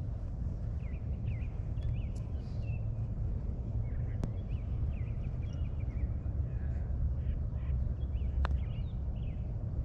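Small birds chirping faintly and repeatedly over a steady low rumble, with two sharp clicks, one about four seconds in and another about eight seconds in.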